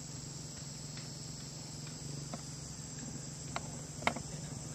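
Steady high-pitched chirring of insects in dry grassland, with a faint low drone of a distant motorcycle engine underneath. A few short, sharp chirps come in the second half.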